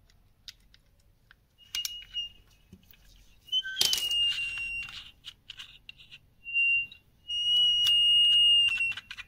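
Auditech body-worn hearing aid squealing with acoustic feedback from its earphone: a steady high whistle comes and goes about four times, longest and loudest near the end. Sharp clicks from the earphone cord and pins being handled come in about two and four seconds in. The whistle shows the aid is switched on and amplifying again.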